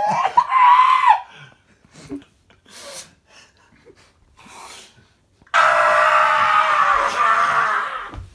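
A person's drawn-out wordless vocal cry, rising in pitch, that breaks off about a second in. After a pause, a loud scream lasts about two and a half seconds.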